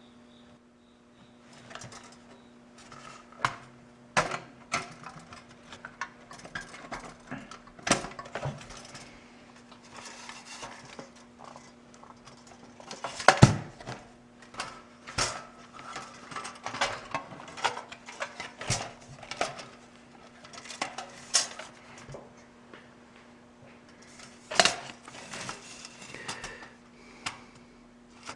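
Metal parts of an opened toaster being handled: irregular clicks, clinks and light knocks, with one louder knock about halfway through.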